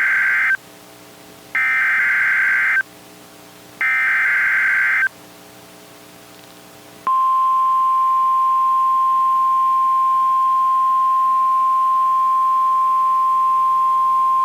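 Emergency Alert System SAME header: three screechy bursts of digital data tones, each about a second long, then about seven seconds in a single steady 1050 Hz weather-radio alarm tone. Together they mark the start of a new warning-level alert.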